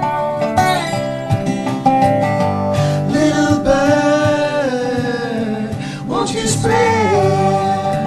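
Song with acoustic guitar accompaniment, with no words sung. A melody line glides and bends in pitch over the guitar from about three seconds in and again near the end.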